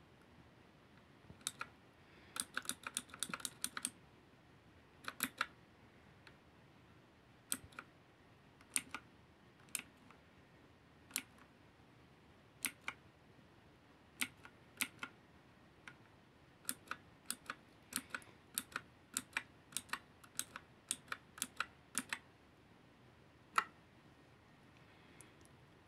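Keys of a V900 mechanical keyboard being pressed, sharp clicks at an uneven pace: a quick run of presses a couple of seconds in, then single presses and short runs, with one louder click near the end.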